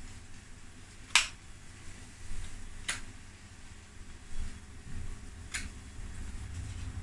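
Three sharp clicks: about a second in, near three seconds and a little past five and a half seconds. The first is the loudest, and all three sit over a low steady rumble.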